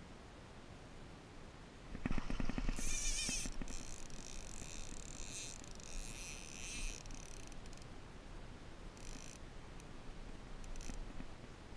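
Fly line running out against the reel's drag, a high-pitched buzzing that starts suddenly about two seconds in and lasts several seconds, with shorter bursts later: a big channel catfish taking line on its run after being hooked.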